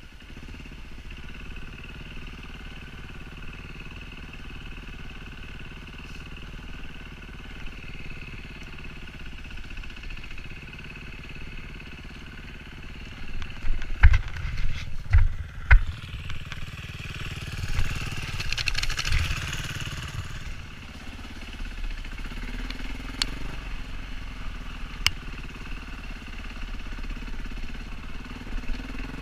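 Enduro dirt bike's engine running under the rider, heard from a helmet camera. A cluster of heavy thumps comes a little past halfway, followed by a rush of wind noise.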